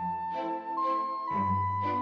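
Background music: an orchestral piece with sustained woodwind and string notes over a low bass line.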